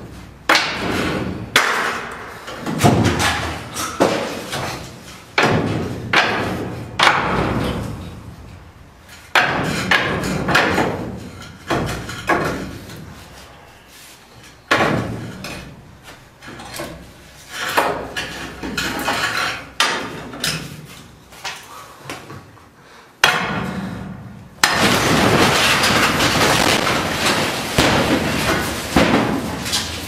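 A long series of loud bangs in an elevator shaft, each echoing and dying away over about a second. Near the end they give way to about five seconds of steady loud noise.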